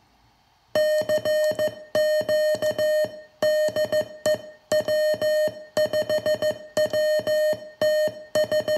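Morse code (CW) tone: a single steady-pitched beep keyed on and off in dots and dashes, in groups about a second long with short gaps between, starting just under a second in. It is the keyed audio tone of a Baofeng handheld transmitting CW over FM, heard on the receiving radio and monitor.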